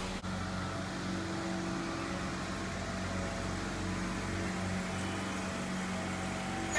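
Jeep Wrangler engine idling, a steady low hum.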